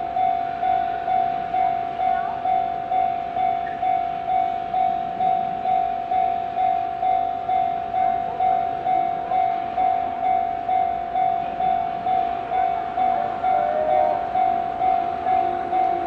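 Japanese railway level-crossing warning bell ringing, a repeating electronic ding about twice a second, signalling that a train is approaching.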